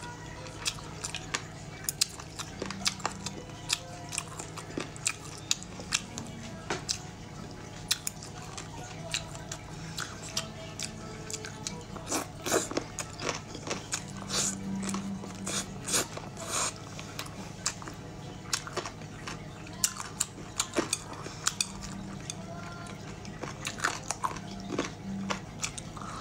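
Close-up chewing and biting of chicken feet: irregular wet clicks and small crunches from the mouth, coming thickest about halfway through.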